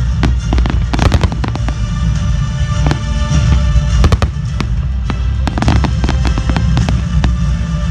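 Fireworks display: aerial shells bursting in repeated bangs and crackles, coming in quick clusters over a continuous low rumble.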